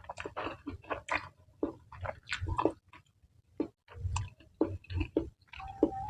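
Close-miked chewing of spicy mie nyemek instant noodles: quick, irregular mouth clicks and smacks, with a short pause about halfway through.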